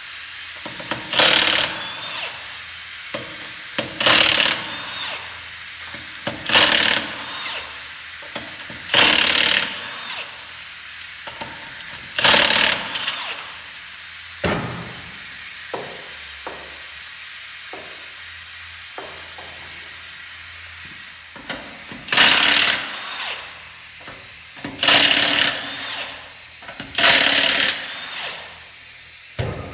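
Impact wrench with a 19 mm socket loosening wheel lug nuts: eight short bursts of hammering, a few seconds apart with a longer pause in the middle, over a steady hiss.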